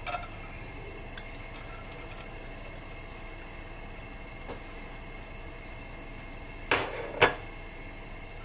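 A utensil clinks lightly against a pan a few times, then clatters twice close together near the end. Under it runs a steady hiss of garlic frying in hot oil.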